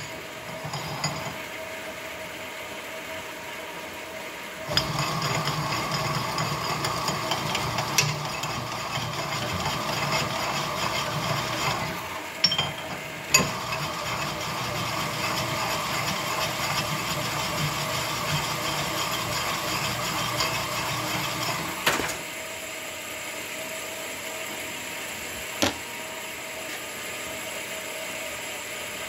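Connecting-rod honing machine running with a steady hum. From about five seconds in, a 283 Chevy connecting rod's big-end bore is stroked on the spinning diamond mandrel, roughing the bore in towards size: a steady rough hiss with a few sharp clicks. It stops about 22 seconds in, leaving the machine's hum.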